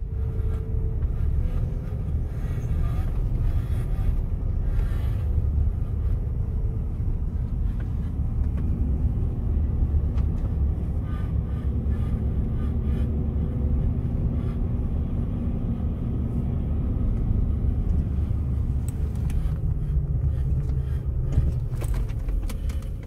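Land Rover Discovery driving on a narrow mountain road, heard from inside the cabin: a steady, heavy low rumble of engine and road noise.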